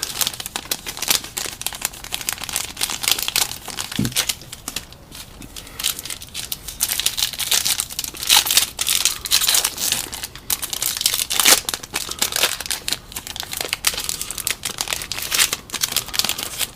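A foil trading-card pack wrapper being crinkled and torn open by hand, an irregular run of crackles and rips.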